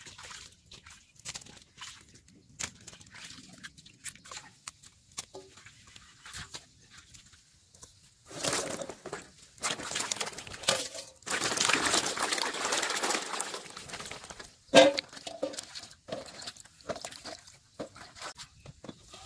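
Hands washing vegetables in a large aluminium basin of water. At first there are quiet rubbing and scattered clicks, then bursts of splashing and sloshing from about halfway, and a single sharp knock about three-quarters of the way through.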